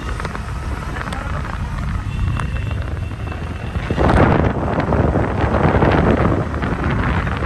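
Street traffic noise with wind rumbling on the microphone. The rush of wind gets louder and rougher about four seconds in, then eases near the end.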